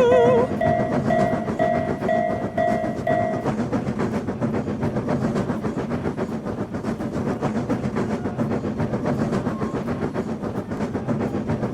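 Railroad crossing warning bell ringing about twice a second, stopping about three and a half seconds in, over the steady rumble and rapid clatter of a passing train. A short warbling tone sounds at the start.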